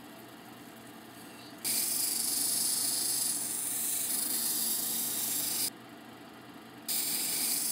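Tiger eye cabochon on a dop stick being ground against the soft 280-grit diamond wheel of a cabbing machine, the final shaping wheel. There is a loud hissing grind over the machine's steady hum, starting about two seconds in. It breaks off for about a second when the stone is lifted away from the wheel, then starts again.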